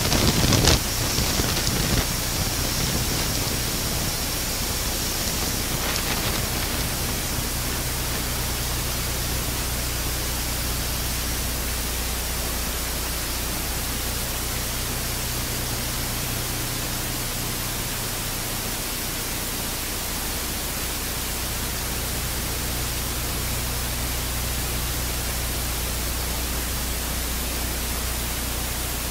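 Four Europrop TP400 turboprop engines of an Airbus A400M running as it taxis: a steady, even rush of noise with a low hum beneath it. Louder, uneven gusts in the first couple of seconds settle into the steady sound.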